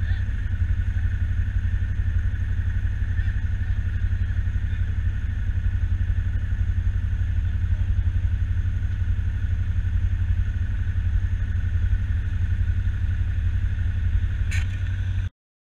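ATV engine idling steadily, heard close up through the camera mounted on the machine, with a deep pulsing rumble. The sound cuts off suddenly near the end.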